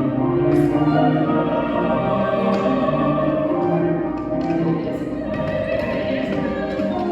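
Classical music: voices singing together with an orchestra, in long held notes.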